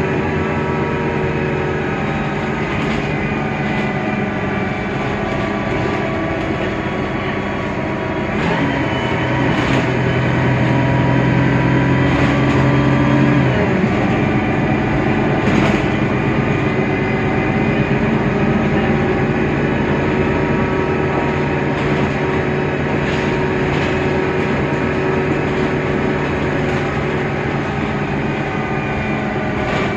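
Mercedes-Benz Citaro bus's OM 906 hLA six-cylinder diesel and Voith DIWA automatic gearbox running under way, with steady whining tones that shift in pitch about 8 and 13 seconds in. A few sharp knocks and rattles come through.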